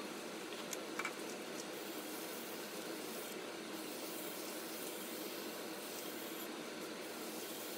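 Steady faint hum of workshop machinery, with a couple of light clicks about a second in as a tin of sanding paste is opened and set down.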